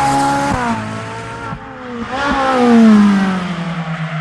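Car engine sound effect: a revving engine with tyre hiss, swelling twice, the pitch falling steadily on the second swell as it passes by.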